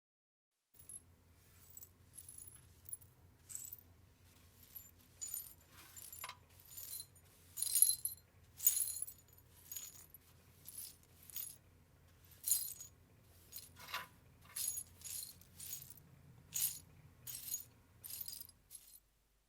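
Broken glass tinkling and clinking in a long irregular series of short, bright chinks, the loudest about eight seconds in, over a faint low hum.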